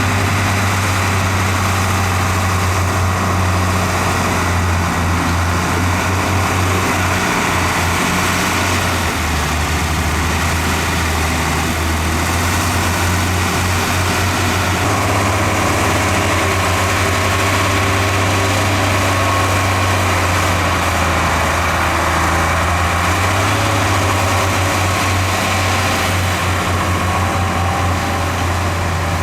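Heavy diesel engine of earthmoving equipment running steadily with a deep low hum. Its note shifts about a third of the way in and again near the end.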